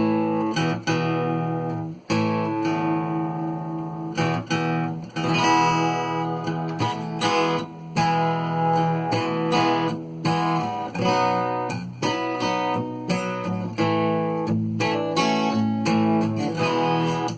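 Cort GA5F-MD acoustic-electric guitar played unplugged, strumming chords and picking notes that ring out between strums.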